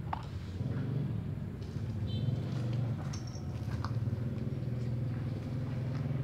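A steady low engine-like rumble runs throughout, with a few short, faint high chirps about two and three seconds in.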